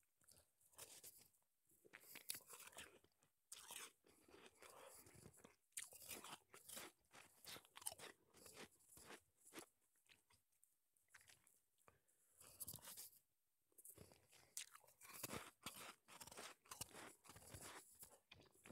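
Soft crunching and chewing of shaved ice from a snowball, close to a wired earphone microphone held at the mouth: repeated crunches in short runs with brief pauses between bites.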